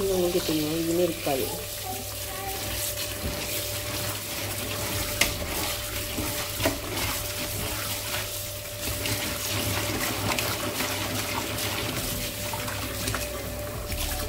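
Tap water running into a pot of crab pieces in a steel sink while hands swish and rub the crabs, with scattered clicks of shell, as the crabs are rinsed clean.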